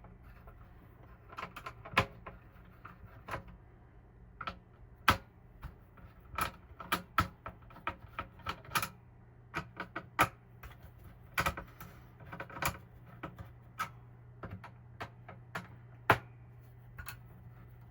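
Irregular sharp clicks and taps of a screwdriver and hands working the CPU cooler's screws and fittings loose inside a Dell Optiplex 3020 small-form-factor desktop case, over a faint steady low hum.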